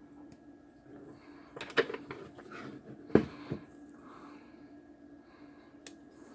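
Small clicks and knocks from handling a circuit board and plugging a micro USB cable into it, the sharpest knock about three seconds in, over soft nose breathing and a faint steady hum.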